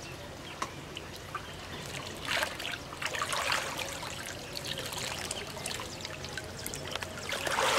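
Water splashing in short bursts, about two and a half seconds in, again about a second later, and loudest near the end: a hooked fish thrashing at the surface while it is played in.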